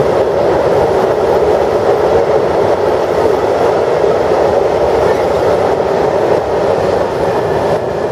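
Freight train of covered hopper wagons passing at speed: a steady loud rolling of steel wheels on the rails. The last wagon goes by near the end.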